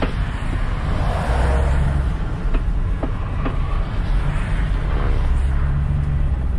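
Inside the cab of a 2005 Mercedes Sprinter diesel van on the move in slow traffic: a steady low drone of engine and road noise, with a few light clicks near the middle.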